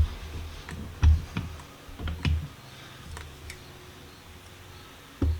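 Scattered light clicks and knocks of hand tools and metal parts being handled on a clamp-on vise during reassembly, about eight separate strokes. A lawnmower runs faintly and steadily underneath.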